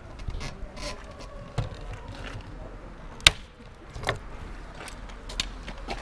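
Large bolt cutter working on the 10 mm steel shackle of a U-lock: scattered clicks and creaks of the jaws and handles, then one sharp, loud metallic snap about three seconds in, followed by a smaller knock.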